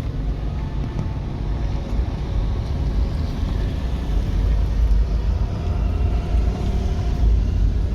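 A motor vehicle running on the road, with engine and road noise making a steady low rumble.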